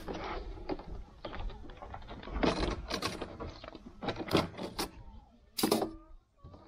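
Metal clamp rings and plastic lids of blue plastic drums being unclamped and lifted: irregular clanks, clicks and scrapes of metal on plastic. The sharpest knocks come at about two and a half seconds, around three, four and a half, and just under six seconds in.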